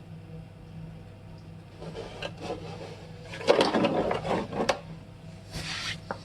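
Metal tools and parts being handled, clattering and rattling irregularly, loudest about three and a half seconds in, over a steady low hum.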